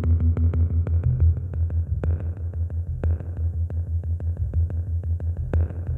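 Moog Mavis and Werkstatt-01 analog synthesizers playing a pulsing sequenced bass line, about three or four pulses a second, with thin clicking ticks over it.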